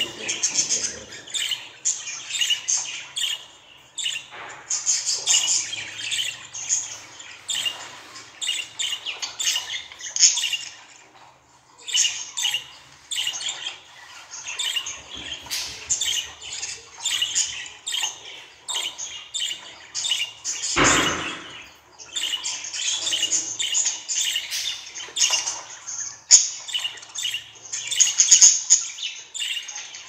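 Budgerigar chatter: a quick, continuous run of high chirps, warbles and squawks with brief pauses. A short knock sounds about twenty-one seconds in.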